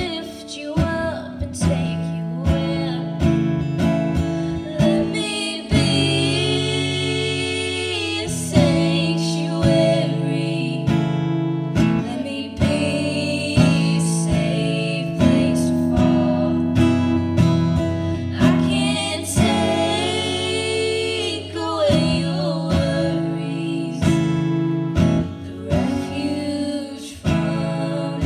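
Two female voices singing a duet, accompanied by a strummed acoustic guitar, with long held notes twice in the passage.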